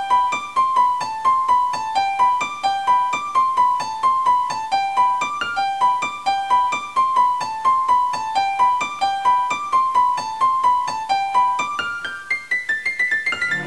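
Background music: a piano-like keyboard playing a quick single-note melody in an even, repeating pattern, climbing in a rising run near the end.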